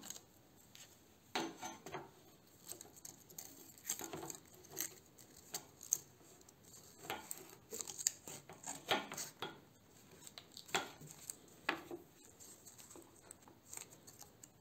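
Thin metal strip being handled, wrapped and bent around plastic pipes by gloved hands: irregular light clicks, taps and scrapes.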